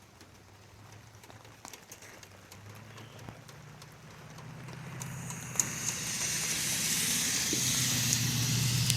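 A motor vehicle approaching, its low engine hum and tyre hiss growing steadily louder over the second half. Faint scattered ticks are heard early on.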